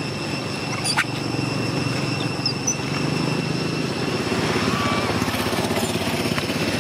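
A small engine running steadily with a low, rough drone, with a sharp click about a second in and a few faint short chirps near the end.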